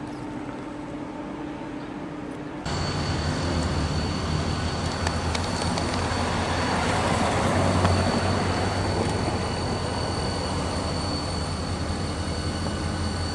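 A quieter steady hum from a stopped diesel locomotive, then, after an abrupt change about two and a half seconds in, the louder low rumble of an approaching CSX diesel freight train's locomotive, swelling to its loudest past the middle, with a thin steady high tone over it.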